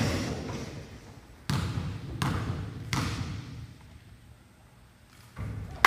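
A basketball bouncing on a gym floor: three sharp bounces, each about three-quarters of a second apart, each echoing and dying away.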